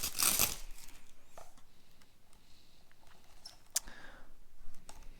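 Protective plastic film being peeled off a small plastic humidifier, a short crinkling rustle at the start, then quiet handling of the plastic body with a few light clicks and taps.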